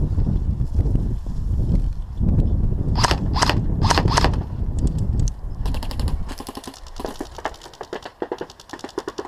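Airsoft guns firing: a few sharp cracks about three seconds in, then a rapid string of shots from about six seconds in. A heavy low rumble of wind and movement on the head-mounted microphone lies under the first half.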